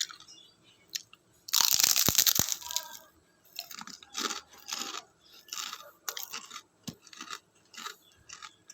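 Crunchy chicharon (fried pork rinds) being eaten close to the microphone. About a second and a half in there is one loud burst of crackling lasting about a second, followed by a run of crisp chewing crunches about twice a second.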